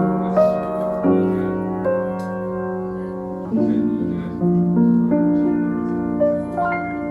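Soft background piano music: chords struck and held, changing about once a second.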